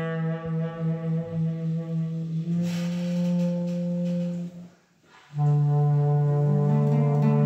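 Greek folk clarinet playing long held low notes, moving to a new note about two and a half seconds in. It breaks off briefly just past the middle for a breath, then comes back on another long held note.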